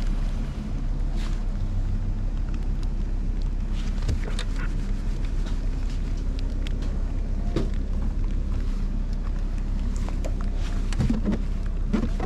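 Vehicle engine running steadily with tyre and road noise, heard from inside the vehicle while it drives on gravel, with scattered knocks and rattles.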